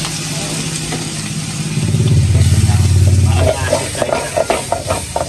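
Sliced mushrooms sizzling in a frying pan with calamansi juice just added, and the pan scraped and stirred with a spatula in the second half. A low engine rumble swells up about two seconds in and is the loudest sound for a second and a half before it drops back.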